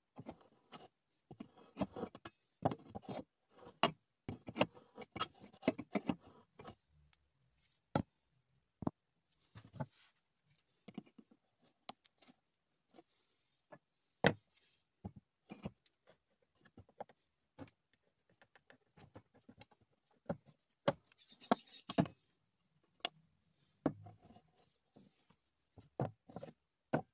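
Hammer blows on a steel nail in a wooden plank. A quick run of light taps comes in the first seven seconds or so, then single knocks spaced out, as the nail bends over under the blows and is worked loose with the hammer's claw.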